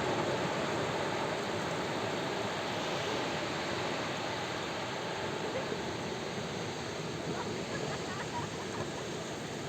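Sea surf: a steady wash of waves breaking and rushing on the shore, easing off slightly toward the end.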